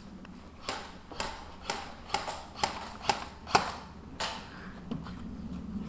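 Airsoft rifle firing single shots in a steady string, about nine sharp cracks at roughly two a second, spacing out slightly toward the end.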